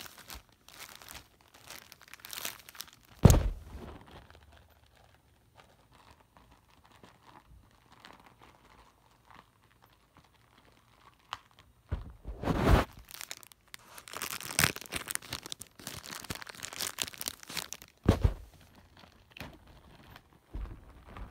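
Clear plastic bag around a plush toy crinkling and tearing as it is handled and pulled open, in irregular rustling bursts with the loudest about three, twelve and eighteen seconds in.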